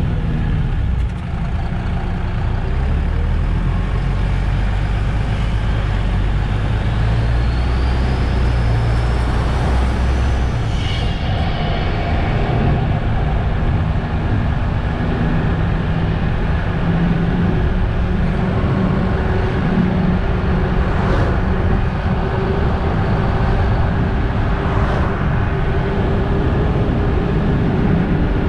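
Diesel engine of a MAN Lion's City GL articulated bus running, heard from outside the bus. Its note shifts about ten seconds in, and there are a couple of faint short hisses later.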